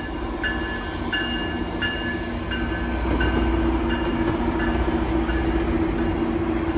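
GO Transit commuter train running, a steady diesel hum with a low rumble that grows about three seconds in. A bell rings about three times every two seconds and fades away.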